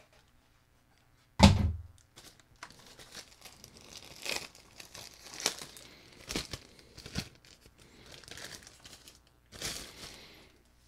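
Thin plastic packaging crinkling and rustling in irregular bursts as it is handled and peeled off a small drone, with one sharp thump about a second and a half in.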